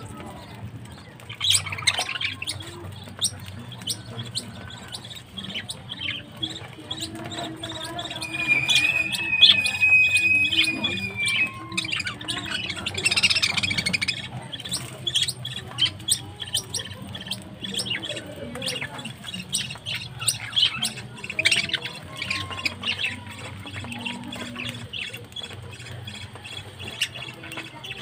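A flock of budgerigars chattering, with chirps and squawks, over many short sharp clicks of beaks on seed as they feed. A clear held whistle stands out for a few seconds near the middle.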